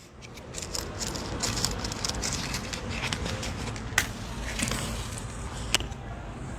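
Gas stove burner flame hissing steadily under a pot of herbs and water set on to boil, with fine crackling and two sharp clicks.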